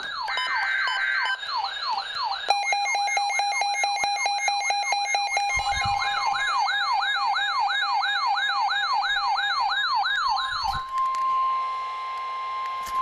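Electronic sirens yelping in fast falling sweeps, about three a second, joined about two and a half seconds in by other steady tones and rapid clicking. About eleven seconds in the sirens cut off and a single steady tone near 1 kHz takes over: the NOAA Weather Radio warning alarm tone that opens a warning broadcast.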